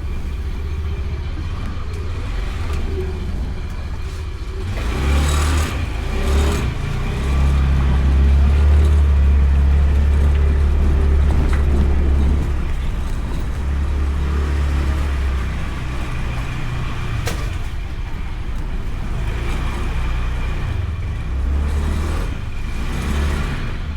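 Honda Beat scooter on the move, its small single-cylinder engine running under a steady low rumble on the bike-mounted camera's microphone, which swells for several seconds in the middle.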